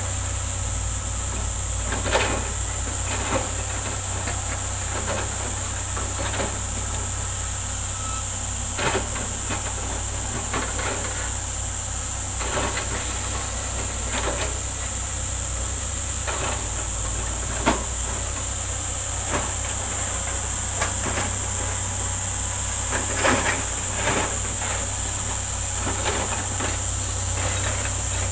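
Crawler excavators working: a steady low diesel engine drone with irregular sharp clanks and knocks from the machines, about one every second or two, the loudest about two-thirds of the way through.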